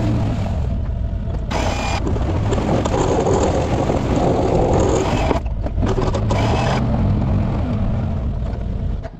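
A Can-Am's engine running under load as it pushes a snowplow blade through snow on a paved street, with steady scraping and rattling from the blade and its homemade skid shoes. The sound drops away just before the end.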